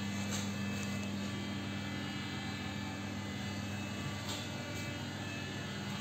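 Steady low mechanical hum at an even level, with a couple of faint ticks about half a second and four seconds in.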